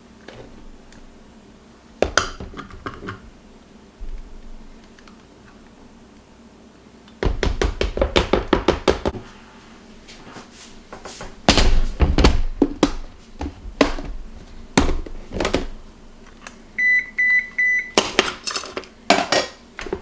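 Kitchen clatter: dishes and utensils knocking and thumping, with a quick run of rapid even clicks about seven seconds in. A steady electronic appliance beep lasts about a second near the end, followed by more clatter of dishes.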